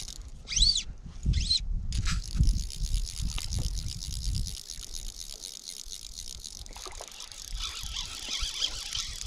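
Wind buffeting the microphone while a fly reel's click drag ratchets as a hooked trout is played, with two short squeaky chirps about half a second and a second and a half in.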